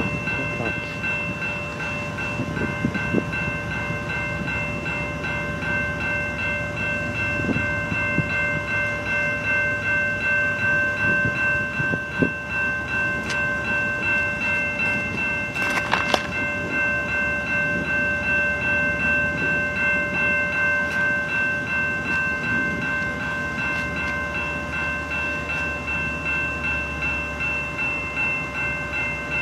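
Railroad grade-crossing warning bell ringing in an even, repeating pulse, over the low rumble of an approaching diesel freight train. There is a short sharp sound about halfway through.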